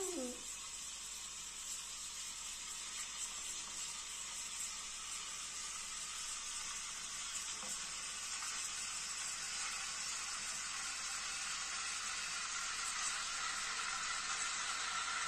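Espresso machine steam wand steaming milk in a stainless steel pitcher: a steady hiss that slowly grows louder, with a thin whistling tone coming in near the end.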